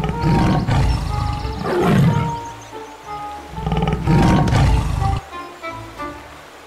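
Tiger roaring twice, each roar about two seconds long, over light background music.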